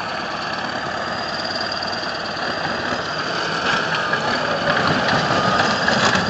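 A heavy machine's engine running steadily, with a constant high whine over it, growing somewhat louder toward the end with a few short clanks.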